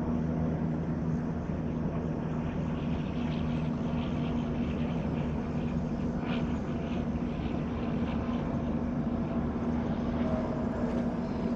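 Steady roar of a fast-flowing flooded river, with a steady low hum underneath.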